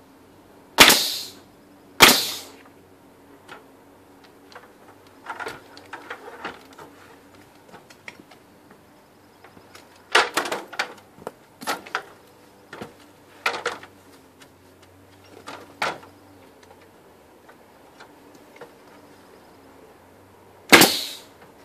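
Pneumatic light framing nail gun firing nails into the wooden top piece of a bay window frame: two sharp shots about a second apart near the start and one more near the end. Lighter knocks and clatter come in between as the stepladder is moved.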